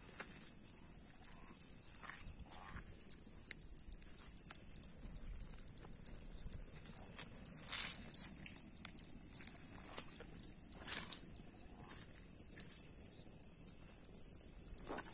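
Night insect chorus: a steady, rapidly pulsing high-pitched trill that runs throughout, with scattered rustles and crackles of footsteps pushing through dry brush and grass.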